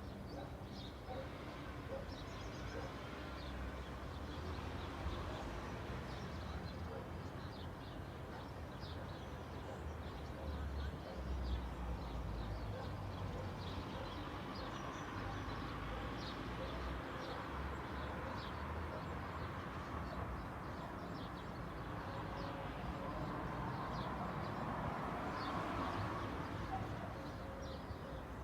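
Suburban street ambience: small birds chirping in short, scattered calls over a steady low rumble of distant traffic, with a broader traffic swell building toward the end.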